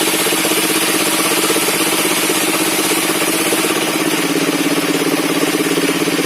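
Engine driving a circular-saw sawmill, running steadily at constant speed with a rapid, even pulsing.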